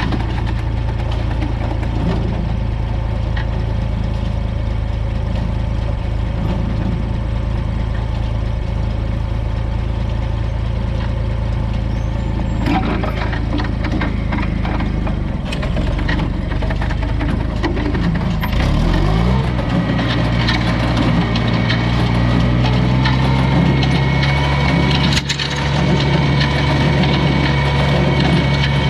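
Farmall 560 tractor's six-cylinder engine running steadily at idle, then revving up about two-thirds of the way through and holding a higher speed. Light mechanical rattling comes in over the higher engine note.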